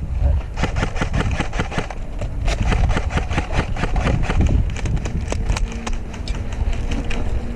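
Airsoft electric rifles firing on semi-auto: a dense, irregular string of sharp snapping shots, several a second, over low rumble on the microphone.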